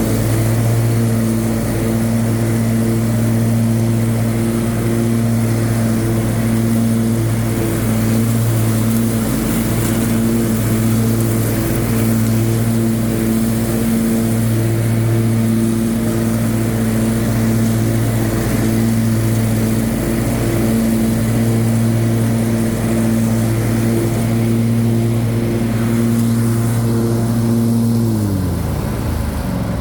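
Troy-Bilt Mustang zero-turn mower's 25-horsepower Briggs & Stratton engine running steadily at speed. Near the end the engine speed falls, its pitch sliding down as it is throttled back.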